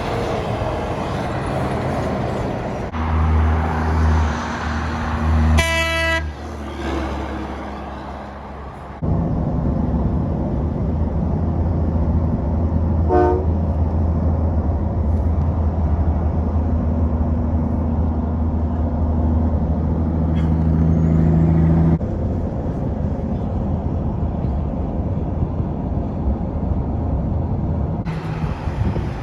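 Roadside traffic with a heavy vehicle engine's low steady drone for much of the time. A brief horn toot sounds about six seconds in, and a fainter short toot comes around thirteen seconds.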